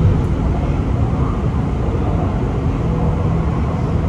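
Running noise of an MRT metro train, heard inside the car: a steady low rumble of wheels on rail, with a faint hum from the running gear.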